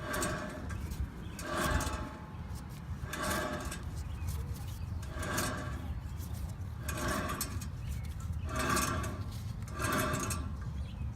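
A worn wheel bearing making a noise that swells and fades about every one and a half to two seconds, in time with the wheel turning, over a steady low rumble.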